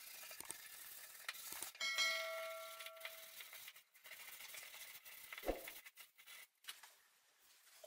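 Sandpaper rubbing by hand along the edges of a plywood strip, in short strokes. About two seconds in a brief ringing tone sounds over the rubbing, and about five and a half seconds in there is a single knock.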